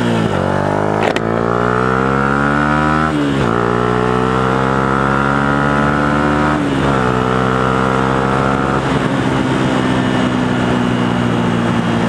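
Yamaha YZF-R125's 125 cc single-cylinder four-stroke engine through an aftermarket Devil exhaust, accelerating hard in gear. The pitch rises steeply, drops at an upshift about three seconds in and again about seven seconds in, then holds nearly steady at cruising speed with more wind noise. A sharp knock comes about a second in.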